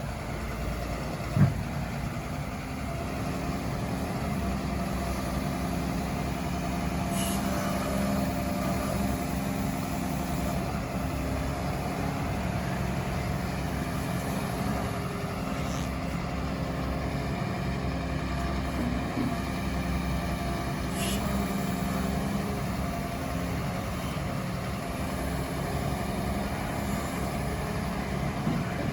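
Diesel engine of a Hyundai HW140A wheeled excavator running steadily, with a single sharp knock about a second and a half in.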